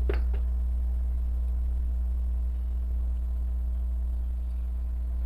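Steady low electrical hum with faint evenly spaced buzzing overtones. Right at the start comes a soft, brief plop as raw eggs slide from a bowl into a blender jar.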